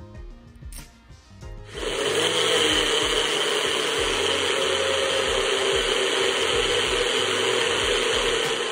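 NutriBullet personal blender motor running steadily at full speed, starting about two seconds in, blending a liquid egg and squash mixture smooth.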